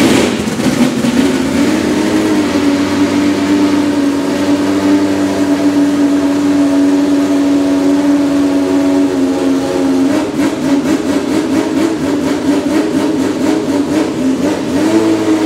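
Judd GV10 3.5-litre naturally aspirated V10 in a Lola T92/10 Group C car, warming up. It comes in suddenly at full loudness and runs at a steady idle, with the revs rising slightly near the end.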